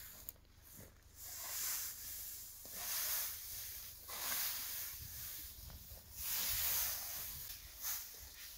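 Hand scythe swishing through tall dry grass in repeated mowing strokes, a swish about every second to second and a half.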